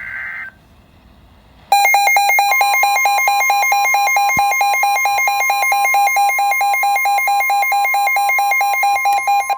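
Weather radio alert signal. A short burst of data tones ends about half a second in. About 1.7 s in, a loud alarm starts: a fast pulsing beep with a steady high warning tone under it, announcing a severe thunderstorm warning.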